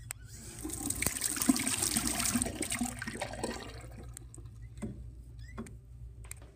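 Water rushing for about three seconds, starting about half a second in, loudest around the middle and dying away by about four seconds, over a steady low hum; a few small knocks follow.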